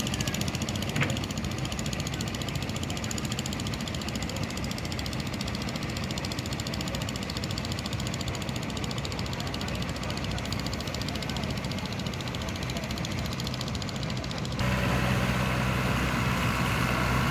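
Inboard engines of wooden fishing boats running as the boats motor in, a steady rapid knocking. About fifteen seconds in the sound turns abruptly louder, with a steady low hum, as one boat is close by.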